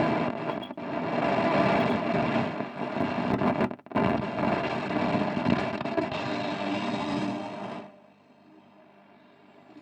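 Shortwave static and hiss from the 1951 Radionette Menuett valve radio's loudspeaker as it is tuned across the shortwave band without a station. The noise cuts out for a moment just before halfway, then drops away near the end.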